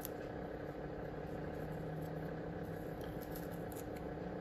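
Steady low mechanical hum, with a few faint clicks and rustles of handling.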